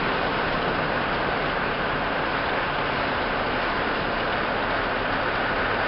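Steady road noise inside an old truck's cab cruising at highway speed: an even rush of tyres and wind with the engine running low underneath.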